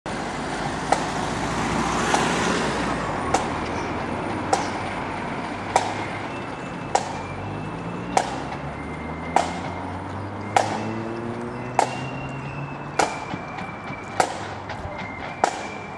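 A marching band's drum tapping a single sharp beat about every 1.2 seconds to keep the marchers in step, with no tune played. Street traffic hums underneath, and a road vehicle's engine rises in pitch in the middle.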